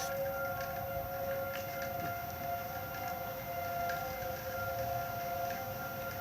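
Outdoor tornado warning siren sounding a steady tone of several pitches together, the community alert for a tornado warning.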